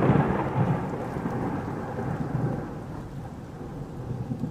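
Thunderstorm sound effect: a roll of thunder over steady rain, the rumble slowly dying away.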